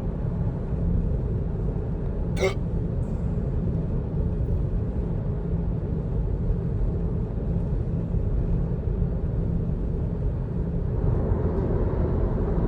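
A man's single sharp hiccup about two seconds in, over the steady low road rumble of a moving car's cabin.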